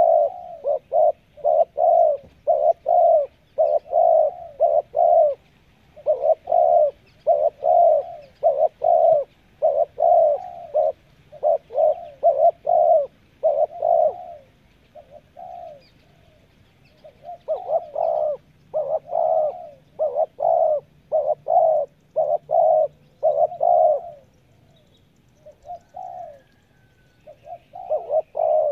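Spotted dove cooing in long runs of short, quick notes, about two to three a second. It breaks off twice for a couple of seconds and starts again.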